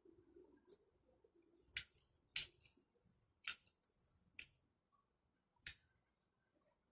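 Five short, sharp clicks or snips at uneven intervals about a second apart, the second one the loudest.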